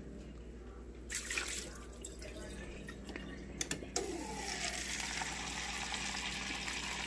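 Refrigerator door water dispenser running a steady stream of water into a plastic cup from about four seconds in, just after a couple of clicks. The water is being run to flush air out of the line after a new filter. There is a brief splash about a second in.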